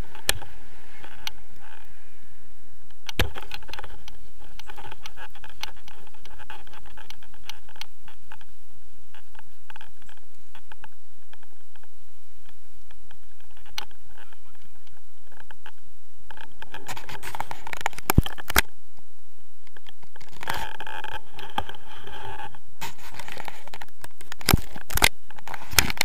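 Scraping, rubbing and clicking handling noise on a pole-held action camera, with sharp clicks about three seconds in, twice near eighteen seconds, and several near the end.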